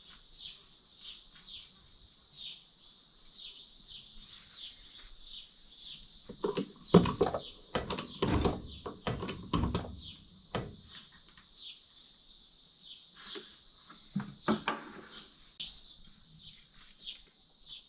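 Insects chirping in a steady repeating pattern. A cluster of knocks and scrapes sounds in the middle, with a few more a little later.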